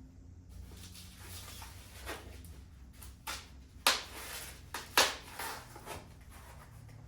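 Handling noises: a series of short clicks and knocks, the two loudest about four and five seconds in, over a low steady room hum.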